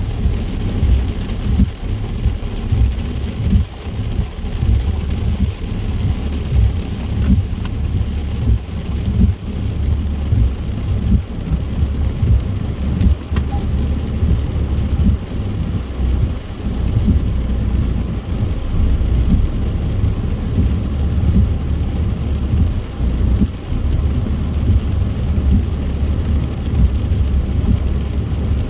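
Car driving at motorway speed in heavy rain: a steady, uneven low rumble of road and tyres under a constant hiss of rain and spray, with two brief clicks about eight and thirteen seconds in.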